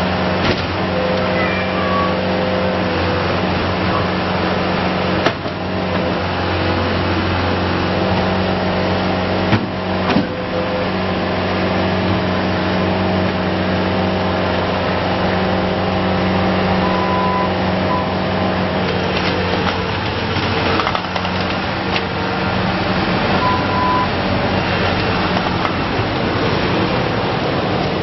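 Bobcat T190 compact track loader's diesel engine running steadily, with a couple of short knocks about five and ten seconds in.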